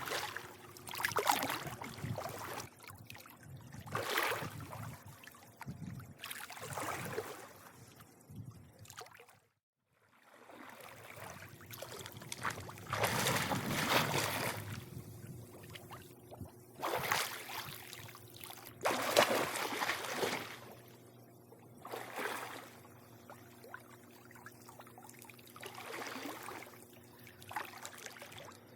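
Swimming-pool water lapping and sloshing in irregular swells, one every second or few, over a faint steady hum. The sound drops out to near silence for about a second, about ten seconds in.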